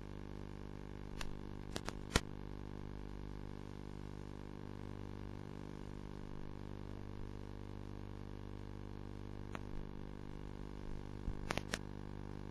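A steady electrical hum that holds one pitch, with a few sharp clicks: three about a second to two seconds in, one about nine and a half seconds in, and a quick pair near the end.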